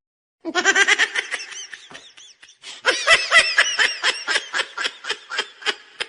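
Laughter in quick, rhythmic pulses, in two bouts: a short one, then after a brief pause a longer, louder one that trails off near the end.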